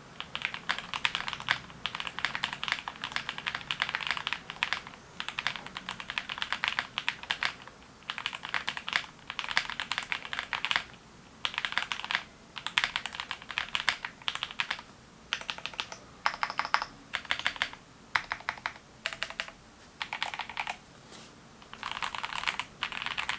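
Typing on a Sisyphus65 mechanical keyboard built with a polycarbonate plate, Lunalight linear switches and GMK Yuri R2 keycaps: rapid runs of key clacks in bursts of a second or two, with short pauses between them.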